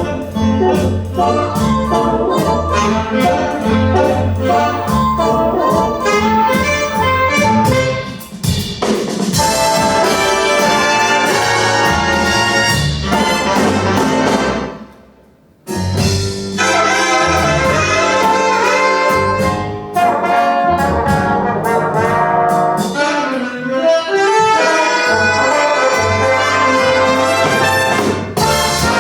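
Big band playing swing jazz, with the trumpets, trombones and saxophones of the brass section over a bass and drum beat. About halfway through, the music dies away, then starts again a moment later.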